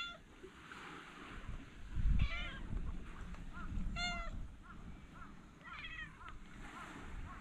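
Stray cats meowing: about four meows, at the start and about two, four and six seconds in, with short chirps between them. A low rumble comes about two seconds in.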